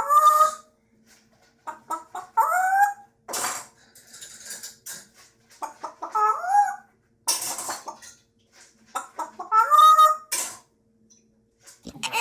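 An animal calling four times, a few seconds apart. Each call is a short cry that bends up and then down in pitch, with brief hissy noises between the calls.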